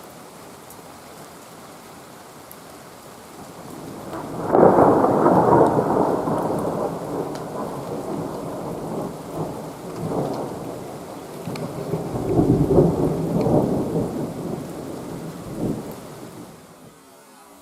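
Thunder rolling over steady rain. A long rumble builds about four seconds in and peaks, eases off, then swells again around twelve seconds before dying away near the end.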